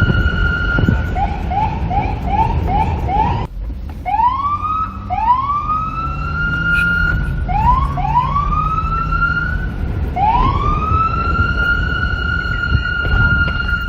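Electronic police siren switching patterns: a held high tone, then a fast yelp of six short rising chirps, a brief cutout, then slower rising wails, the last of which climbs and holds steady. A low rumble runs underneath.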